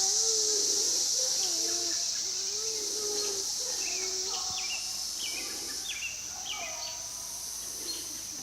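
Steady high-pitched chorus of night insects, with faint distant voices and short chirps underneath.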